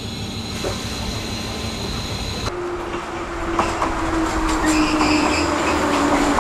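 KiHa 40 diesel railcar running on the rails. A steady hum for the first couple of seconds gives way abruptly to louder running noise, with a slowly falling whine and a few clicks of the wheels over rail joints.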